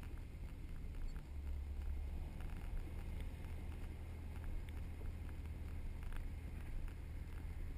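A vehicle driving slowly over soft beach sand: a steady low engine and tyre rumble heard from outside the body, with light scattered ticks and rattles.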